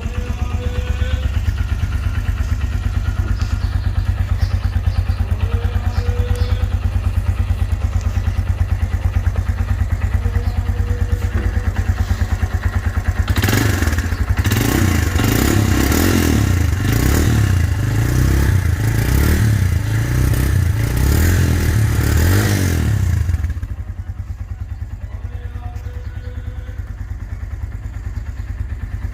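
Suzuki GS150 motorcycle's 150 cc single-cylinder four-stroke engine idling just after starting. About halfway through it is revved several times over some ten seconds, then settles back to idle.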